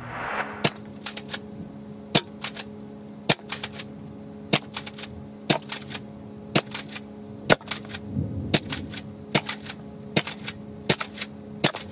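Dart Zone Max Stryker pump-action, spring-powered foam-dart blaster being fired again and again, about once a second. Each cycle is a sharp plastic snap followed closely by a quick double clack, as the blaster is pumped and fired through a 12-dart clip.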